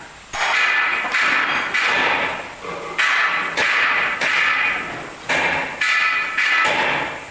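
Hammer blows on steel, about ten unevenly spaced strikes, each one ringing on with a metallic tone.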